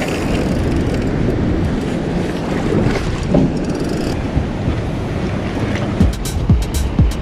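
Wind buffeting the microphone over water slapping at a small boat's hull. About six seconds in, music with a steady thumping beat, about two beats a second, comes in.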